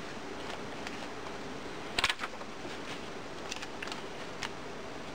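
Paper pages being turned in a ring-bound journal: a sharp cluster of clicks and rustling about two seconds in, then a few lighter ticks, over a steady faint hiss.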